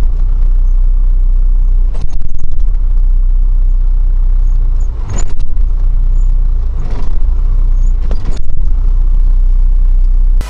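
A vehicle engine running with a loud, steady low rumble, with a few short knocks about 2, 5, 7 and 8 seconds in.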